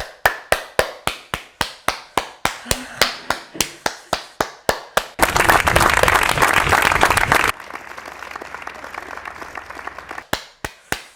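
Hands clapping steadily, about four claps a second. About five seconds in, a dense burst of applause takes over, then thins to lighter applause, with a few single claps near the end.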